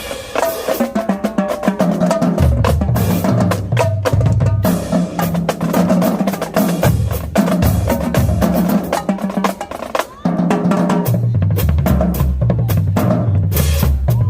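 High-school marching drumline playing a fast cadence: rapid snare drum strokes and rolls over tuned bass drums stepping between pitches, with a brief break about ten seconds in.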